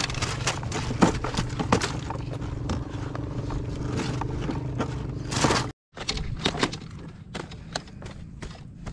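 Irregular knocks, clicks and scrapes over a steady low hum. The sound cuts out abruptly about six seconds in and returns quieter, with scattered clicks.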